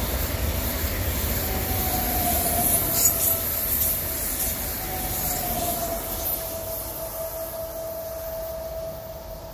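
Stadler FLIRT 3 electric multiple unit passing and running away round a curve. Its rolling rumble and hiss fade steadily, with a steady high whine throughout and a few light clicks about three seconds in.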